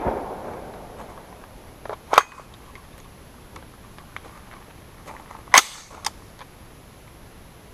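Sharp metallic clacks from an AR-15-style 5.56 rifle being loaded and readied for a single shot: one clack about two seconds in, another about five and a half seconds in, and a lighter click just after it.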